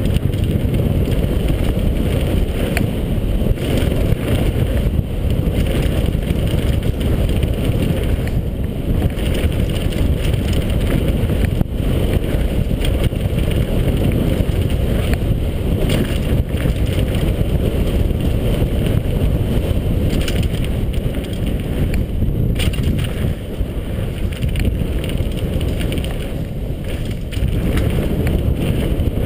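Wind rushing over a helmet-mounted camera's microphone, mixed with the rumble and rattle of a mountain bike rolling fast down a dirt trail.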